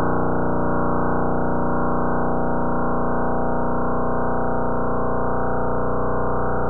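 Crab pulsar's radio pulses converted to sound: a loud, steady buzz of rapid pulses with no change in pitch.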